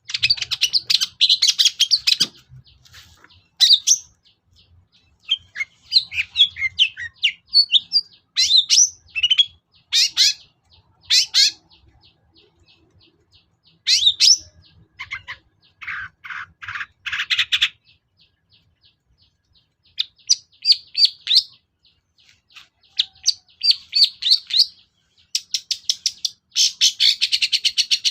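Long-tailed shrike (cendet) singing loudly: bursts of sharp high chirps and rapid chattering phrases broken by short pauses, with a harsher, lower rasping rattle about halfway through and a fast, dense trill near the end.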